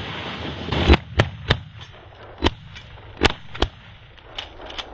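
Shotguns from several hunters firing in a rapid volley: about six sharp shots within three seconds starting about a second in, followed by a couple of fainter shots near the end.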